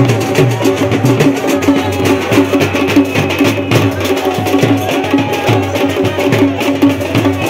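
Loud music with fast, even drumming and a steady droning tone held over it.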